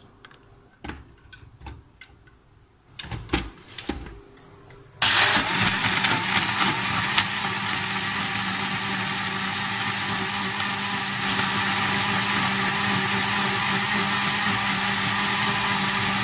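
A few light knocks, then about five seconds in an electric kitchen blender switches on and runs steadily with a constant motor hum. It is blending mango sharbat (cooked raw mango with sugar and ice) in its jar.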